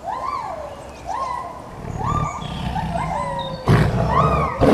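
An animal calling over and over, about once a second, each call rising then falling in pitch. A low rumbling growl builds in the second half, and two sharp loud bursts come near the end.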